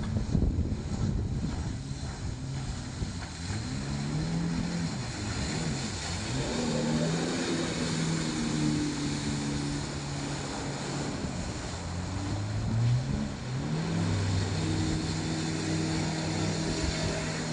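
A 1300 cc Suzuki-engined jet ski running, its engine pitch rising and falling a few times as it is revved and then holding steady, with a second rise about two-thirds of the way through. Wind and water noise hiss under it.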